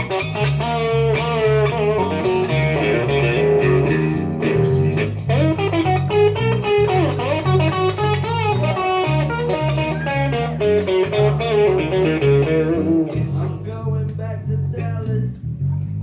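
Live blues-rock played on electric guitar and electric bass. The guitar plays a lead line with bent notes over a steady, repeating bass pattern, and the guitar line thins out near the end.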